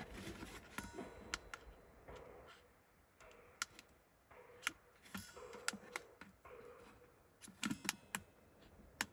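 Faint, irregular clicks of fingers pressing the buttons on a Chinese diesel heater's LCD control panel.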